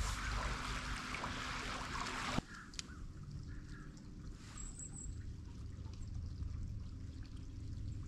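Bass boat running across the lake: rushing water along the hull and wind over a low engine rumble. About two and a half seconds in the rush cuts off abruptly, leaving a quieter low rumble.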